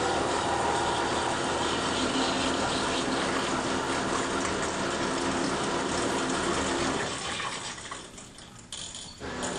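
Distek VIP 4400 dissolution vessel washer spraying water from its wash nozzle into a glass dissolution vessel, with a steady rush of water and a pump humming. About three quarters of the way through, the spray dies away, and the machine starts up again suddenly just before the end.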